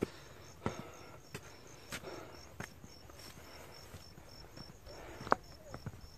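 Footsteps of a hiker walking on a dry dirt trail, about three steps every two seconds at first, with the loudest step about five seconds in. An insect chirps steadily behind them in a fast, even pulse.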